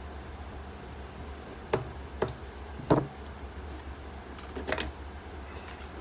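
Clicks and taps of hard plastic as a handheld multimeter's screwed-on battery cover is lifted off and set down: three sharp clicks in the middle and a cluster of softer taps near the end, over a low steady hum.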